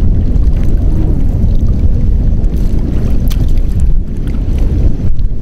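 Wind rumbling on the microphone, loud and steady, over water lapping and small splashes around a capsized plastic kayak hull as a person moves beside it in the water.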